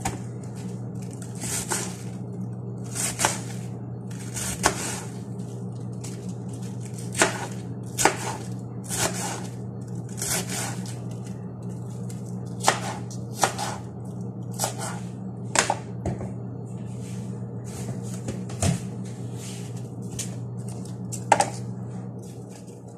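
Kitchen knife slicing a head of cabbage into thin shreds on a cutting board: irregular sharp cuts, some close together and some a second or more apart, over a steady low hum.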